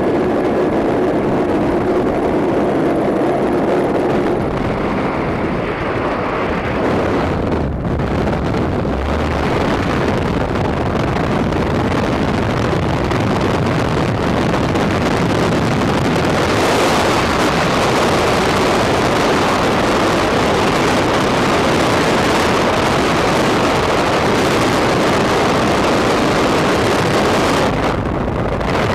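Loud, steady rush of freefall wind over a skydiving camera's microphone. In the first few seconds, at the open aircraft door, a steady engine drone runs under the wind and fades about four seconds in.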